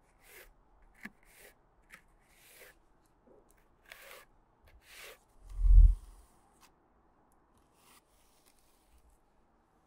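Steel spatula scraping and spreading mineral repair putty over a facade insulation patch, in short strokes every half second to a second. A single low thump about six seconds in is the loudest sound.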